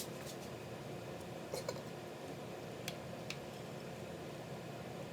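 A handful of light clicks and taps from kitchen handling over a steady low room hum: about six short ticks, two pairs of them close together.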